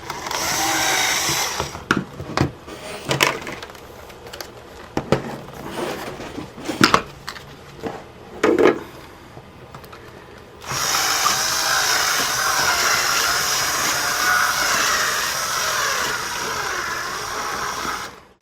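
Cordless power drill boring out a hole in a laptop's plastic case: a short burst of drilling, a few seconds of scattered clicks and knocks, then a long steady run of about seven seconds that cuts off near the end as the drill's battery goes flat.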